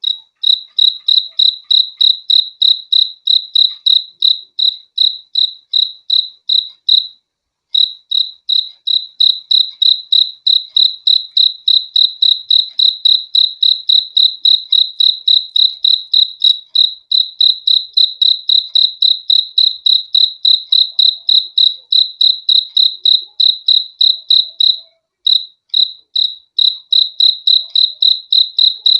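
A cricket chirping in a steady, even rhythm, about three high chirps a second. It pauses briefly about seven seconds in and again near the end.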